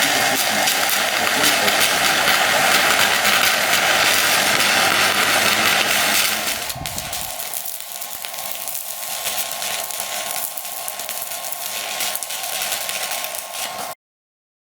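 Electric arc of a handheld stick welding gun crackling and sizzling while it welds. It is loud for about the first six seconds, goes on more quietly, and cuts off suddenly near the end.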